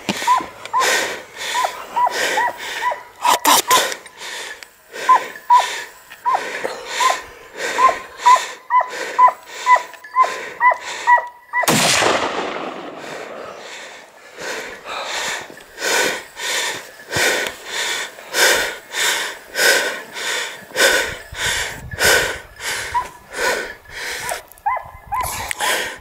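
Hunting hounds barking on a trail in a steady run of short barks, about two a second. About halfway through, a single sharp crack rings out and trails off in a long echo.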